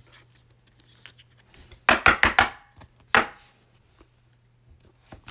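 Trading cards being handled, faint shuffling, then a quick cluster of sharp taps and clacks about two seconds in and one more a second later, as the cards and a plastic card holder are knocked together.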